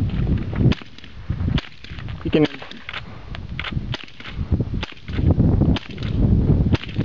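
A string of single semi-automatic gunshots, irregularly spaced and mostly under a second apart, each a sharp crack over a low rumble.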